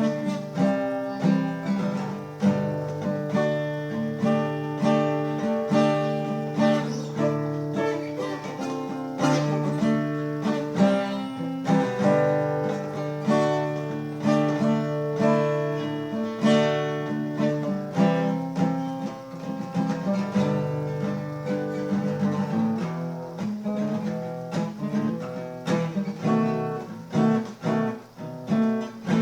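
Acoustic guitar played without singing: a run of plucked notes and strummed chords, each note ringing on.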